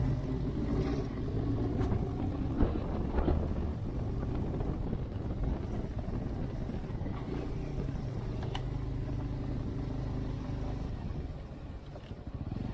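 Motorcycle engine running steadily under way on a climbing road, with a few faint clicks; it eases off slightly near the end.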